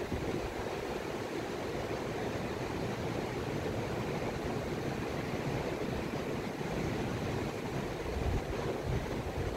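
Steady wash of surf breaking along a sandy Gulf beach, with an uneven low rumble underneath.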